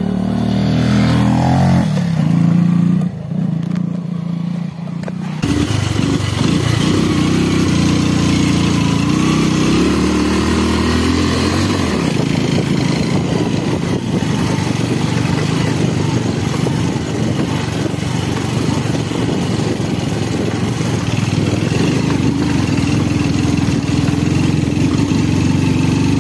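A motorcycle engine passing close by, its note falling as it goes past. From about five seconds in, a motorcycle engine running steadily as heard from on board, under heavy wind and road noise.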